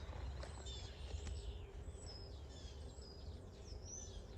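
Songbirds chirping and singing in short, repeated rising and falling phrases, over a steady low rumble.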